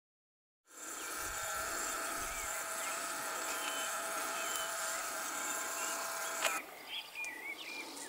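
After a moment of silence, insects drone steadily with a few short bird chirps over them. About six and a half seconds in, the drone cuts off with a click, leaving quieter outdoor sound with more bird chirps.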